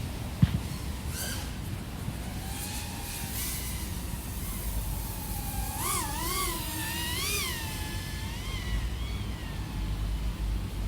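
An iFlight AOS 3.5 V5 FPV quadcopter's XING 1504 brushless motors and props, heard through the DJI O3 Air Unit's onboard microphone. A steady low rumble of wind and prop wash runs under a motor whine that rises and falls with throttle, swinging up and down several times about six to seven and a half seconds in. There is a sharp knock about half a second in.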